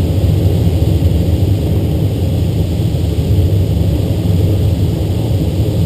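Steady, deep rush of airflow over the canopy of a DG-1000 glider in flight, heard from inside the cockpit.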